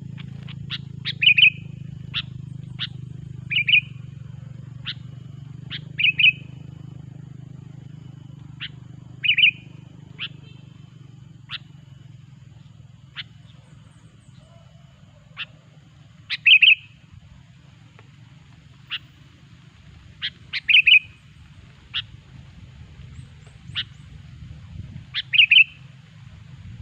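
Sooty-headed bulbul (kutilang) giving short, sharp chirping calls at irregular intervals, some single and some in quick pairs, over a steady low background rumble.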